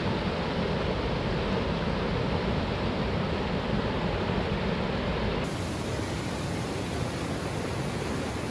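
River water rushing over rock ledges in rapids and a small waterfall: a steady, even rush of whitewater, its tone shifting slightly about five and a half seconds in.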